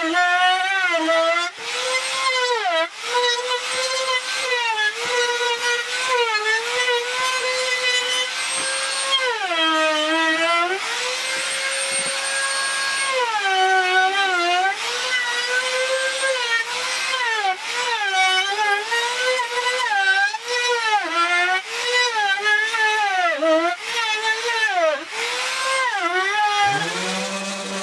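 Compact trim router running at a high whine and cutting along the edges of a hardwood board, its pitch sagging again and again as the bit bites into the wood and recovering between passes. Near the end the whine winds down and a lower steady hum starts.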